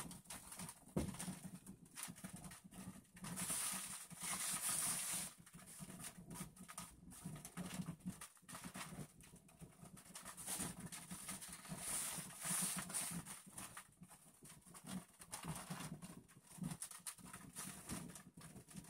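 Handheld garment steamer in use: steam hissing in bursts, loudest about four seconds in and again around twelve seconds, over an uneven low pulsing.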